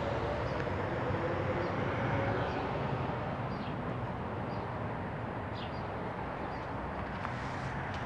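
Steady city background rumble of distant traffic, with a few faint, short bird chirps scattered through it.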